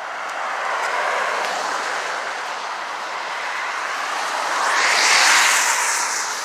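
Cars passing on a wet road, their tyres hissing: a swell about a second in and a louder one around five seconds in.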